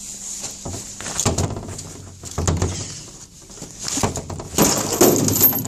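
Irregular crunching and rustling noises with scattered clicks, loudest in a cluster near the end, from moving about and handling things.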